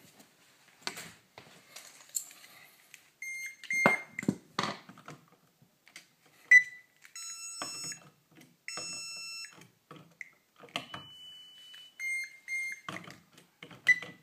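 Electronic beeping: short beeps, some in quick pairs and two held for about a second, with scattered clicks and knocks between them.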